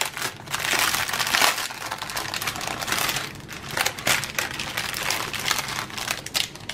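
Clear plastic packaging crinkling as hands pull open a bag and slide out a strip of small plastic packets of diamond-painting drills, in irregular bursts, loudest about a second in and again around three to four seconds in.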